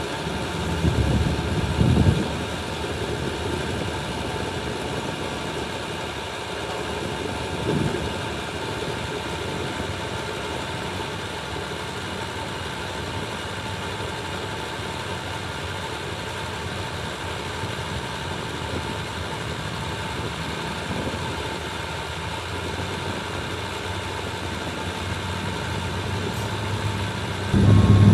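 Hitachi ZAXIS 350H excavator's diesel engine running steadily, with a few louder low swells in the first couple of seconds and once more near eight seconds.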